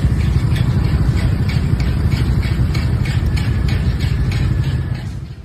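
Road traffic on a bridge: a loud, steady, deep rumble of vehicle engines and road noise, fading away near the end.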